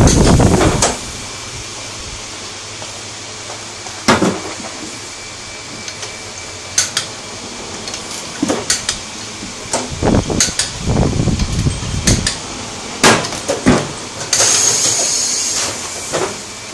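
Tyre-changing work in a tyre shop: scattered sharp metallic knocks and clanks of tools, a few heavy thuds, and a steady hiss lasting about a second and a half near the end.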